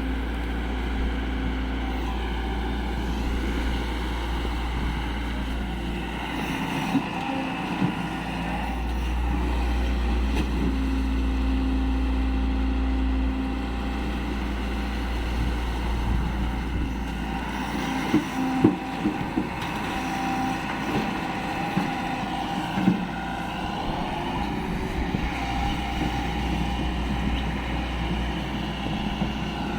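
Excavator's diesel engine running steadily with a low rumble, growing louder for a few seconds near the middle. Its pitch dips and recovers briefly twice, and a few sharp knocks come about two-thirds of the way through.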